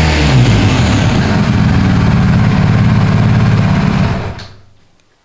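BMW R1250GS boxer-twin engine dropping from high revs to a low, pulsing idle as the throttle is let go, then dying away about four seconds in.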